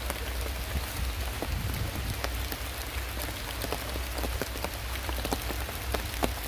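Rain falling on an umbrella canopy overhead: a steady hiss dotted with many sharp ticks of individual drops, over a steady low rumble.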